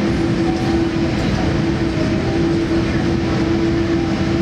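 Steady cabin rumble of a Boeing 787 Dreamliner on the ground after landing, with a constant mid-pitched engine hum over it.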